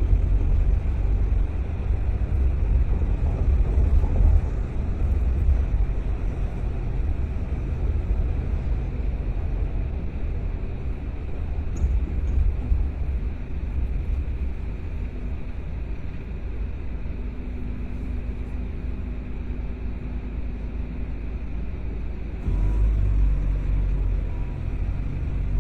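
A car driving: a steady low rumble of engine and road noise, which grows louder and heavier about 22 seconds in.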